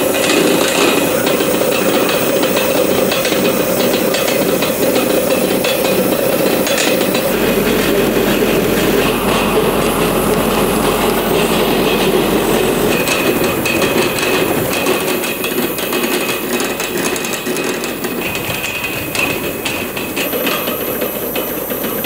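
Borehole drilling rig at work: the drill rod turns in the casing with a continuous rattling clatter over a steady rush of noise, the rig drilling with compressed-air flush through chalk and flint. A faint high whine comes and goes.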